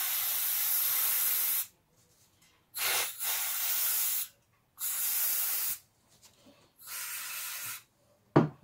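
Aerosol can of carburettor cleaner spraying in four hissing bursts of one to two seconds each, the last one fainter, then a sharp knock near the end.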